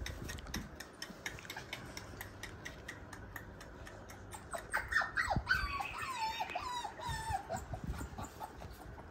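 A puppy whimpering: a string of short, high, falling whines starting about halfway through, after a run of soft clicks.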